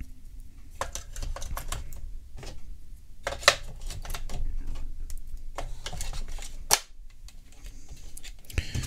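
AA batteries being pressed one by one into the plastic battery compartment of an Amazon Echo Wall Clock: a string of irregular small clicks and knocks as they go in against the spring contacts, the sharpest about three and a half seconds in and again near seven seconds.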